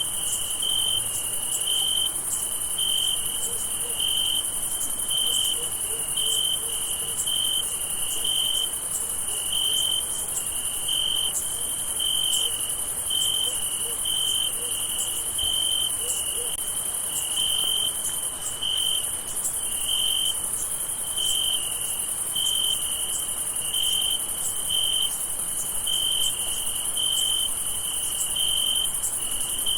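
Crickets chirping at night: short chirps repeating about once a second over a steady, high-pitched insect trill.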